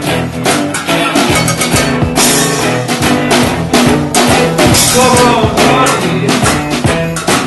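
Live band playing: a drum kit keeping a steady beat with snare and cymbal hits, over electric guitar and upright bass.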